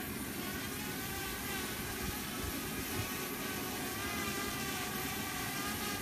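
Parrot Bebop quadcopter hovering, its four propellers and motors giving a steady whine that wavers slightly in pitch, with wind rumbling on the microphone.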